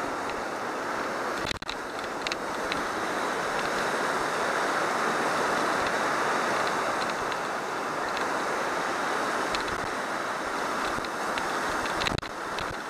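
Steady rushing of fast river rapids, with a few short knocks about one and a half seconds in and again near the end.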